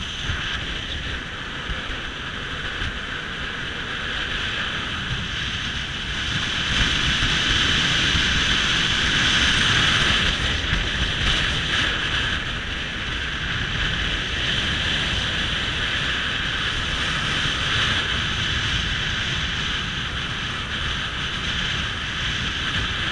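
Small motorboat under way: its motor running steadily, with water rushing past the hull and wind buffeting the microphone, a little louder from about six to ten seconds in.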